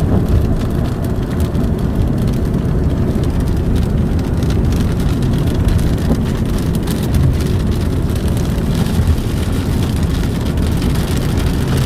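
Gusty wind rumbling unevenly on the microphone, with scattered raindrops ticking.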